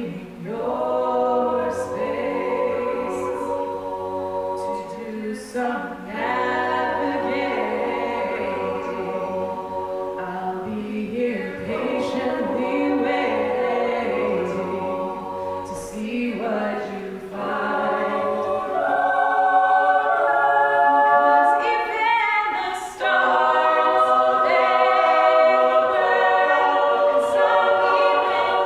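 Mixed a cappella group singing: a female soloist leads at the microphone over sustained backing harmonies from the other men's and women's voices, with no instruments. The singing swells louder about two-thirds of the way through.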